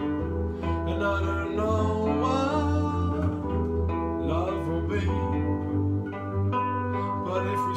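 Acoustic guitar and electric keyboard playing a slow song together, with a man singing over them.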